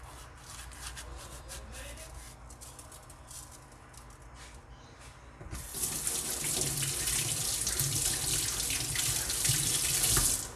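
Kitchen tap running: a steady rush of water starts about halfway in and stops abruptly just before the end. Before it there are faint clicks and rustles of hands working in the pot.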